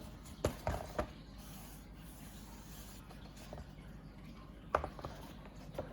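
Watercolour paint set and its packaging being handled: a few light clicks and knocks, three close together early and one near the end, with soft rubbing and rustling between them.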